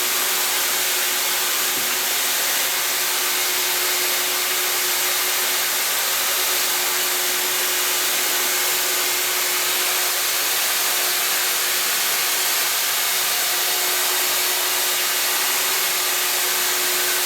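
Industrial vacuum cleaner running steadily: an even rush of air with one constant hum underneath, unchanging throughout.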